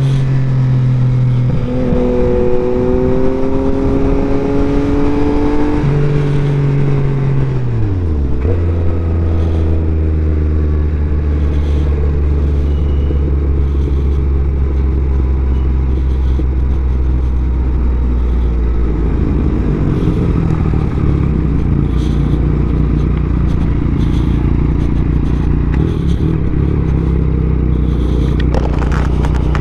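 Motorcycle engine with wind noise: running at road speed, its note falling as it slows about six to eight seconds in, then a low steady engine tone at walking pace.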